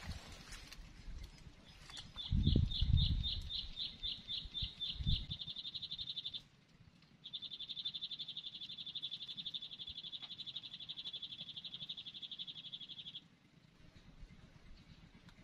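A small animal's high, fast-pulsed trill: separate pulses that speed up and run together, a short break about six seconds in, then a steady trill lasting about six seconds. Low thuds come around two to three seconds in and again near five seconds, the loudest sounds.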